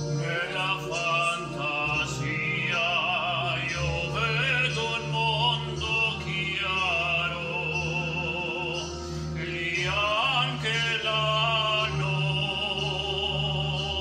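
A man singing in an operatic style with wide vibrato, holding long notes, over a soft recorded musical accompaniment.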